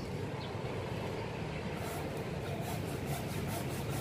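Hand saw cutting through an avocado stump, with quick, even rasping strokes, about four or five a second, in the second half, over a steady low rumble.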